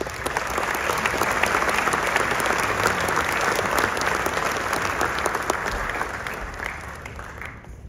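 Audience applauding: a burst of many hands clapping that starts suddenly and dies away near the end.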